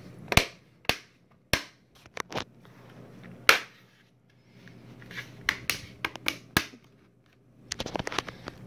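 Plastic case of an Asus Chromebook C300M snapping back together as it is pressed shut, a series of sharp clicks as the clips catch one by one around the edge. The loudest comes about three and a half seconds in, with a quick run of smaller clicks near the end.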